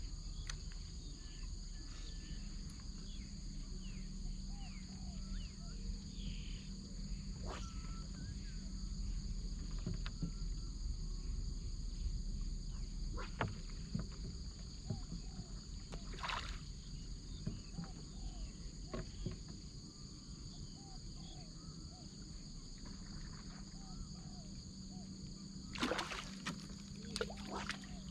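Steady chorus of crickets, several high even tones held throughout, over a low rumble, with scattered clicks and knocks; the loudest knocks come in a short cluster near the end.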